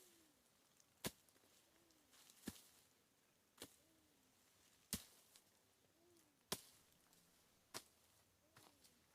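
A hoe blade striking into soil, six strokes about one every second and a half, each followed by a faint short rising-and-falling sound.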